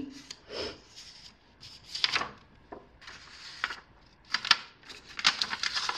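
Sheets of construction paper being handled on a wooden floor: a series of short rustles, light scrapes and clicks, spaced irregularly.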